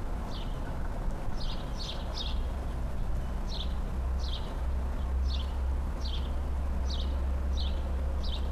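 A small songbird giving a run of short, high chirps, about eleven of them, irregularly spaced at roughly one to two a second, over a steady low rumble.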